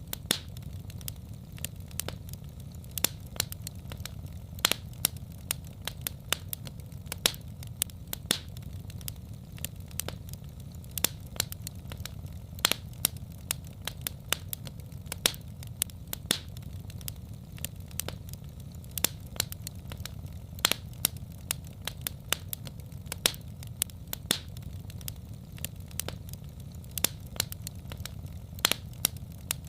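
Wood fire in a fireplace crackling: irregular sharp pops and snaps, several a second, some louder than others, over a steady low rumble of the flames.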